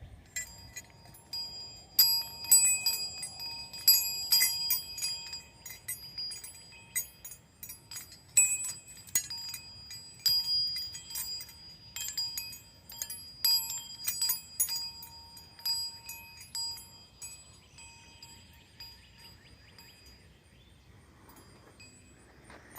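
A set of metal wind chimes ringing in irregular clusters of bright, overlapping tones that fade away over the last few seconds.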